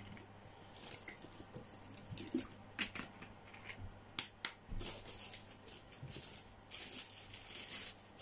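Plastic bottle and plastic packaging being handled by hand: scattered sharp clicks and crackles, with a longer stretch of rustling near the end.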